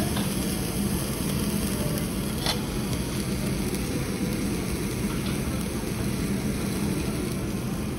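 Slice of beef sizzling on a yakiniku grill's mesh grate, over a steady low rumble. A single sharp tick about two and a half seconds in.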